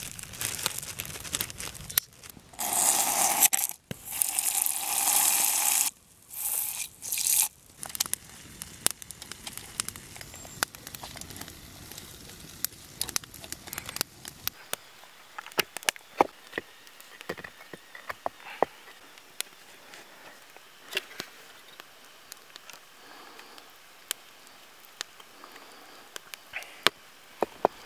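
Plastic zip-top bag crinkling as flour is poured from it into a stainless steel camp mug, in a few loud rustling stretches, followed by a long run of scattered small crackles and clicks while the dough is mixed by hand.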